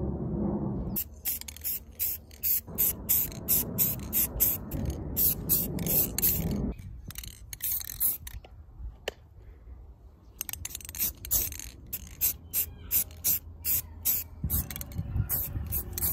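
Aerosol spray paint can in use: an even run of short, sharp, hissy strokes, about three a second, with a pause of a couple of seconds a little past halfway.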